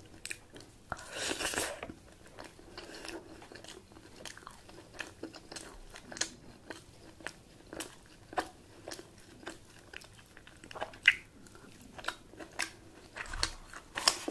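A person eating close to the microphone: irregular bites, crunches and chewing clicks. There is a brief noisy burst about a second in, and the loudest is a sharp click about eleven seconds in.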